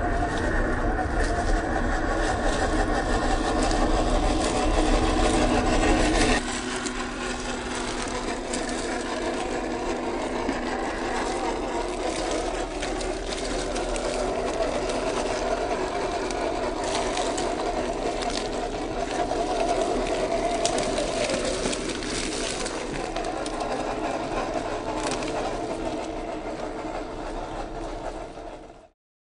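Electric drive motor and gearbox of a 1/12-scale MN128 RC Jeep Rubicon whining steadily as the truck crawls over gravel and leaf litter, with light crackles from the tyres. The sound shifts abruptly about six seconds in, then fades and cuts off just before the end.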